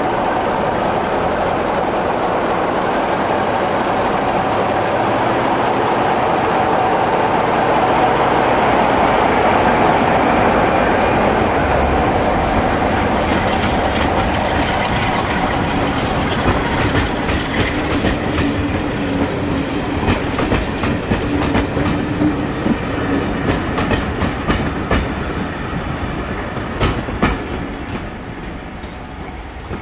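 BR Class 45 'Peak' diesel locomotive 45132, with its twelve-cylinder Sulzer engine, pulling away under power, loudest about a third of the way in as it passes. It is followed by the coaches rolling by, their wheels clicking over the rail joints, and the sound fades near the end as the train moves off.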